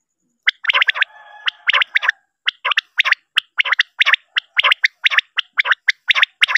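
Recorded common quail (batair) calls, a lure sound for hunting quail at night: short sharp notes repeated rapidly in quick groups of two or three, with a held, even-pitched call for about a second near the start.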